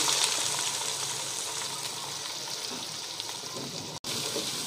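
Sliced onions sizzling as they go into hot ghee and oil in a pot, loudest at first and easing to a steady fry. The sound cuts out for an instant near the end.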